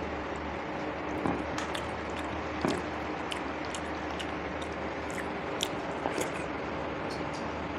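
A person chewing food close to the microphone, with scattered wet mouth clicks and smacks over a steady background hiss.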